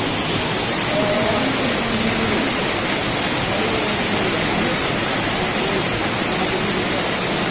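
Heavy rain falling steadily on a paved street, with streams of rainwater from roof drain spouts splashing onto the ground, making an even, loud hiss.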